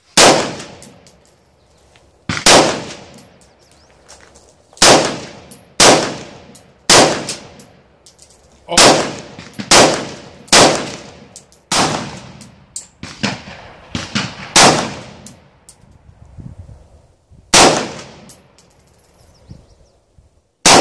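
AR-15 rifle fitted with a muzzle brake firing slow semi-automatic shots, about fifteen over the stretch at irregular gaps of half a second to two and a half seconds. Each sharp report echoes briefly, and a thin high metallic ring trails many of them.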